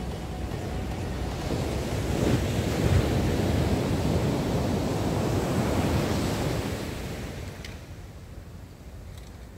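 Ocean surf breaking and washing up the beach, a rushing sound that builds over the first couple of seconds and dies away near the end.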